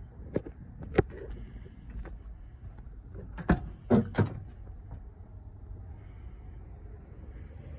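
Driver's door of a 1999 Mazda B3000 pickup being opened: a couple of single clicks, then a quick run of three sharp latch clicks and knocks about three and a half seconds in as the door comes open.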